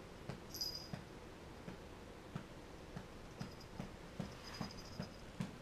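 Soft, irregular taps of a cat's paws on a hardwood floor as it walks, about two or three steps a second.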